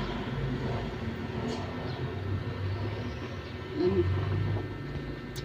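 Steady low background rumble, with a brief murmur-like sound about four seconds in and a sharp click at the end.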